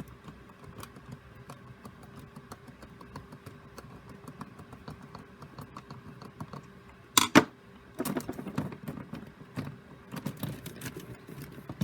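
Plastic Rubik's cube pieces clicking and rattling as they are handled and fitted back together, with one loud sharp click about seven seconds in.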